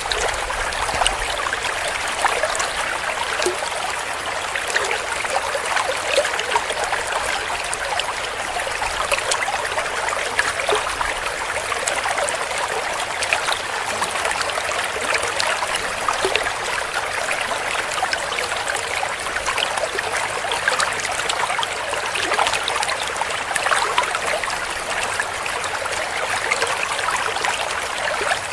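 Shallow stream flowing and gurgling over stones, a steady trickling and splashing with no pauses.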